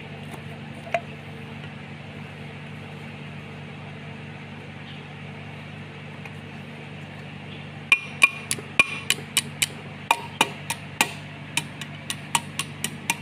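Sharp metallic taps, about three a second, starting about 8 seconds in: a hammer striking a socket set on the valve spring retainers of a Kubota tractor cylinder head to seat the valve locks. Before that only a single click about a second in, over a steady low hum.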